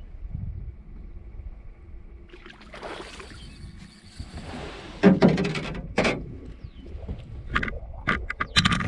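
Handling noise in a small fishing boat while a fish is played on the line: a low rumble, a hiss of about two seconds, then two loud thumps a second apart and a run of sharp clicks and knocks near the end.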